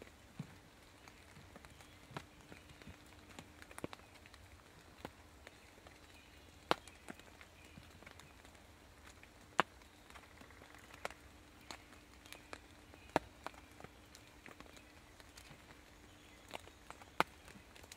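Quiet woodland ambience: scattered sharp ticks and faint rustles in dry leaf litter, irregularly spaced, a few of them louder, over a faint steady hum.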